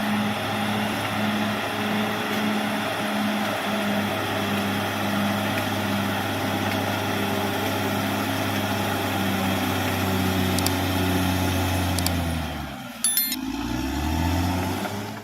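Caterpillar D6R XL bulldozer's diesel engine running steadily with a slight throb. Near the end the engine speed drops sharply and then picks back up, with a brief metallic clink.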